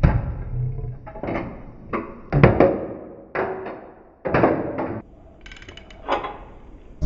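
Irregular metal knocks and clunks from hand tools working on a car's engine and mounts, about eight in all, each ringing briefly.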